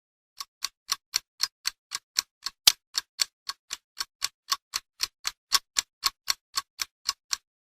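Rapid, even ticking, like a fast clock or timer: about four sharp ticks a second that stop shortly before the end.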